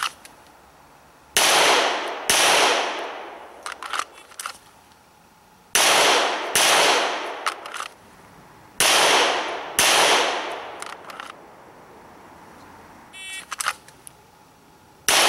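9mm Smith & Wesson M&P pistol firing in pairs of shots about a second apart, three pairs with pauses of a few seconds between, each shot a sharp crack with a short echoing tail. One more shot comes right at the end.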